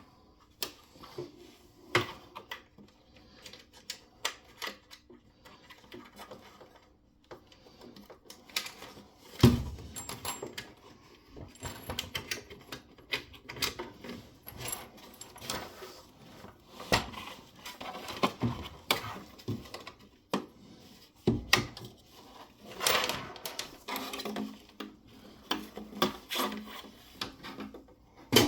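Irregular clicks, knocks and light clatter of tools and metal parts being handled, with a heavy thump about nine and a half seconds in and further knocks around seventeen and twenty-one seconds.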